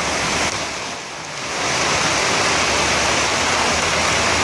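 Heavy rain falling, a steady hiss that dips briefly about a second in and then comes back up.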